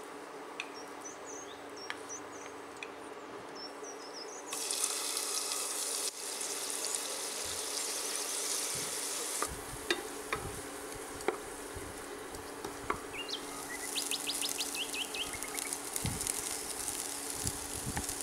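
Chopped onion sizzling in hot ghee in a pot. The sizzle starts suddenly about four seconds in, and a wooden spoon clicks and scrapes against the pot as it is stirred. Faint high chirps sound in the background at the start and again near the end, over a steady low hum.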